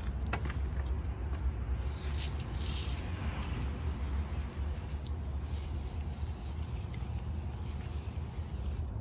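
Hand pump sprayer hissing as it sprays liquid onto pavers, in spells from about two seconds in, over a steady low rumble.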